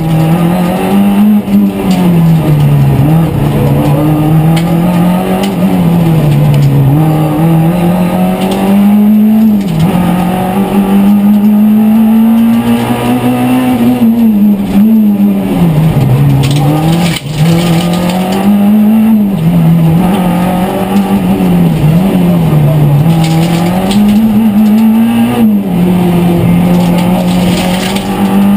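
Renault Clio Ragnotti Group A rally car's engine heard from inside the cabin at full stage pace. The engine pitch repeatedly climbs under acceleration and drops sharply at each gear change, with slower falls as it slows for corners.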